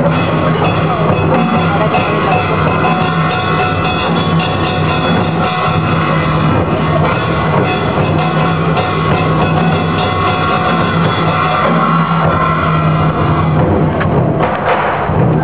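Loud traditional Vietnamese water puppet theatre music: drums and percussion beating under sustained melodic instruments. Near the end the held tones drop away into a run of sharp percussion strokes.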